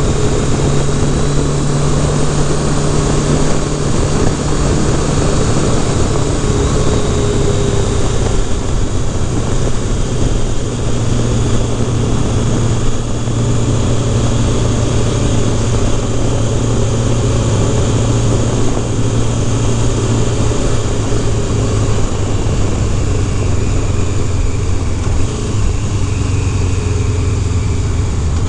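Kawasaki Concours ZG1000's inline-four engine running as the motorcycle rides along, with steady wind noise. The engine note steps lower twice as the bike slows.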